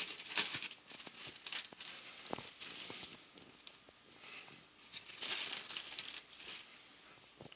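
Soft crinkling and rustling in a few short bursts with small ticks, from a chili powder container being handled and shaken over a bowl of shredded chicken.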